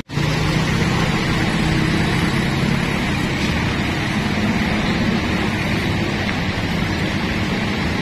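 Steady rush of floodwater, with motorcycle and car engines running low as they wade through the flooded street.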